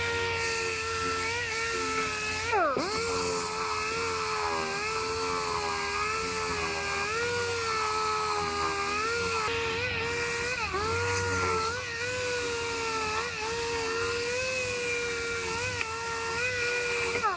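Dual-action orbital sander whining as it sands body filler on a repaired quarter-panel seam, its pitch dipping over and over as it loads up against the panel, most sharply about three seconds in.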